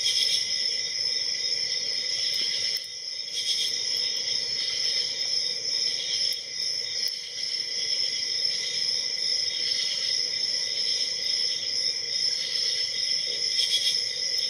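A few faint clicks of a hook pick working the pins of a padlock, under a steady, high-pitched background tone.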